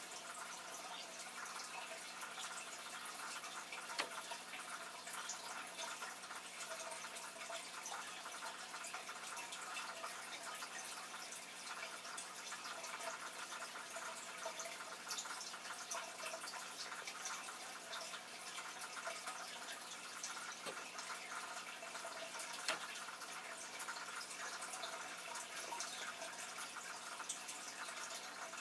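Aquarium water trickling and dripping steadily, with many faint ticks and two sharper clicks, one about four seconds in and another near twenty-three seconds.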